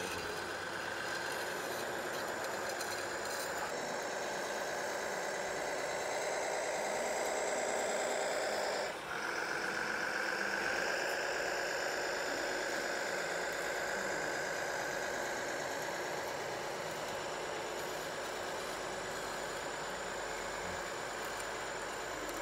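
Remote-controlled model Cat single-drum soil compactor running and driving: a steady drone with a high whine, dropping out briefly about nine seconds in.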